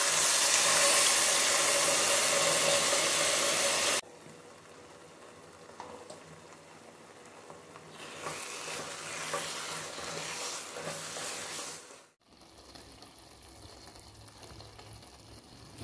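Cooker-cooked beef and its gravy poured into a pan of hot fried masala, sizzling loudly; the sound cuts off suddenly about four seconds in. Quieter sizzling follows, with a spatula stirring the beef roast from about eight seconds, and it drops low near the end.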